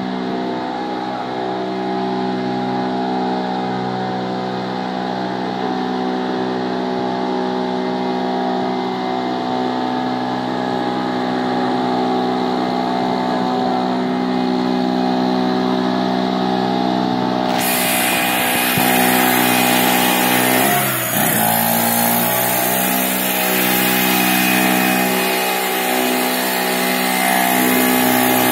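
Small portable petrol generator engine running at a steady speed. About two-thirds of the way in, a loud rushing hiss starts suddenly, as the electric blower fan comes on. Shortly after, the engine note briefly sags and recovers.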